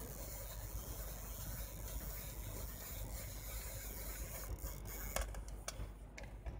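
Cotton-gloved hands handling a Canon F-1 SLR camera body: steady rubbing and scraping of the gloves against the metal body, with three light clicks near the end.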